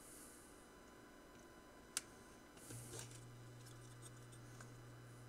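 Near silence with faint handling of a small circuit board on a metal workbench: one sharp click about two seconds in, then a low steady hum comes in just past halfway.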